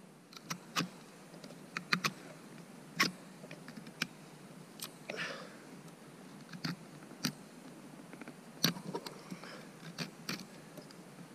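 Carving knife cutting into the end grain of a wooden block, hollowing out the middle of a cup: a dozen or so irregular sharp cuts, with a short rasping scrape about five seconds in. The wood is now cutting more easily.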